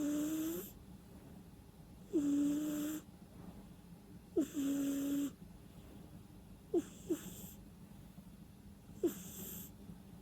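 Sleeping cat snoring through its nose, a breath about every two seconds. Each breath starts with a quick falling squeak; the first three then hold a steady whistling tone for under a second, while the last two are only short squeaks.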